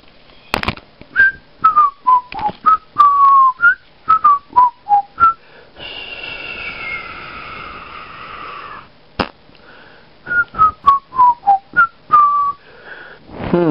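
A person whistling a tune of short notes, mostly stepping downward, in two phrases. Between the phrases come about three seconds of breathy hiss with a slowly falling tone, then a single sharp click.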